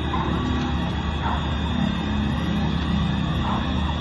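Emergency vehicle sirens wailing, their pitch rising and falling, over a steady din of street noise.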